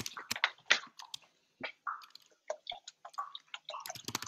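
A plastic water bottle being handled and poured into a pan on the stove: irregular crackles and clicks from the bottle, with a few short splashes of water.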